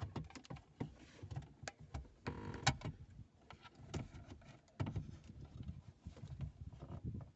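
Plastic dashboard trim frame around a car stereo being pried and pulled loose by hand: a string of irregular clicks and snaps from its retaining clips, with plastic creaking and scraping a little over two seconds in.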